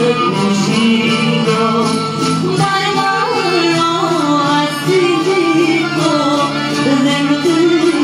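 Albanian folk ensemble playing live on violins, accordion, a wind instrument, guitar and a jingling frame drum (def), with a wavering melody line over a steady accompaniment.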